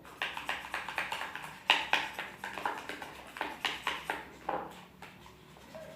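Sticky homemade slime of white glue and liquid detergent being worked, a quick irregular run of wet squelching clicks that thins out toward the end; the mixture has not set and stays gluey.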